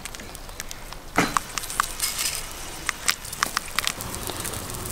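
Wood fire crackling in the stove under a cast-iron cauldron: sharp, irregular pops and snaps over a steady hiss.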